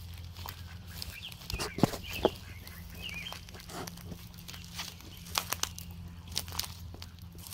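Footsteps crunching through dry twigs, dead branches and grass, with two loud sharp cracks about two seconds in, over a steady low hum.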